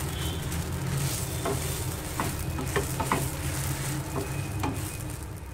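Bread finger roll frying in shallow oil in a nonstick pan with a steady sizzle. A slotted spatula gives a few light clicks and scrapes against the pan as it turns and presses the roll.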